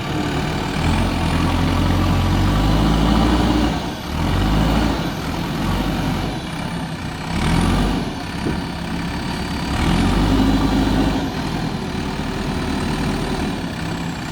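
JCB 3DX backhoe loader's diesel engine running, revving up and settling back several times as the machine works.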